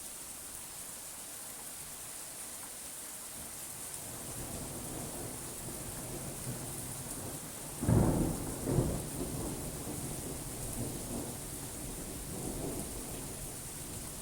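Steady rain with rolling thunder. A low rumble builds through the first half, breaks into two loud claps a little past halfway, then rumbles away in weaker swells.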